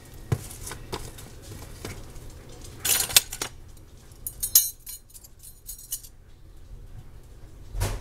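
Metal measuring spoons clinking and jangling as they are handled, with scattered clicks and a louder clatter about three seconds in.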